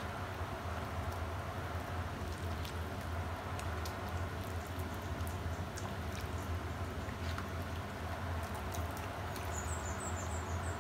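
Steady low hum with a few faint clicks, and near the end a quick run of about six short, high-pitched chirps.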